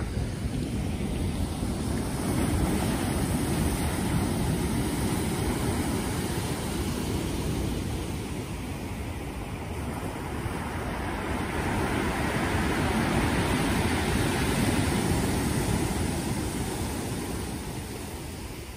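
Surf breaking and washing up a shingle beach, swelling and easing in two long surges, the second fading near the end.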